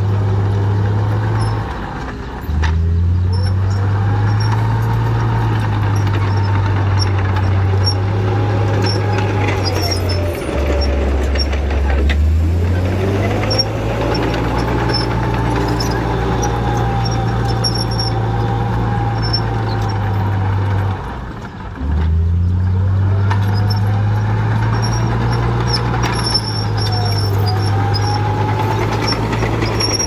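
Komatsu crawler bulldozer's diesel engine running hard as it pushes gravel, with a whine that rises and falls along with it. The engine drops back three times, about two seconds in, for a longer spell around ten to twelve seconds, and near twenty-two seconds, then pulls up again each time.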